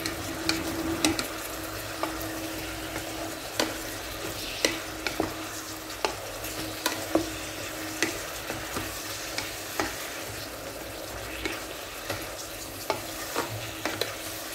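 Meat being stirred in a rice cooker's inner pot: the utensil scrapes and knocks against the pot at irregular moments over a steady sizzle of the meat cooking in a little broth.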